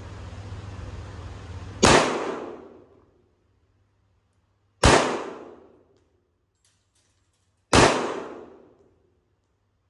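Three slow, aimed shots from a Sig Sauer 1911 Spartan pistol firing .45 ACP full-metal-jacket rounds, about three seconds apart, each echoing for about a second.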